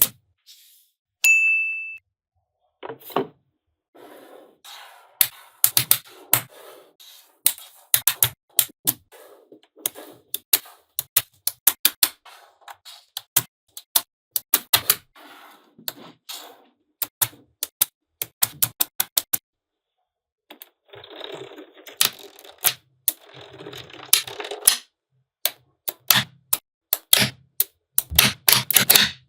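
Small magnetic balls clicking and snapping together in quick runs, with softer rattling as they are handled and rolled. A brief bell-like ding sounds about a second in.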